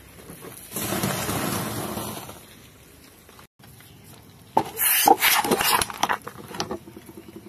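A car tyre rolling over stacks of crunchy biscuits, crushing them with a crunching noise. Then a tyre rolls onto plastic squeeze bottles with blue caps, giving a quick run of sharp cracks and pops as the caps and bottles split.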